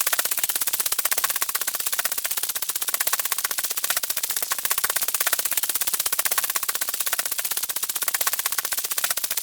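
Geonosian wings flapping, looped: a steady, fast rattle of wingbeats, many a second, with an insect-like whir.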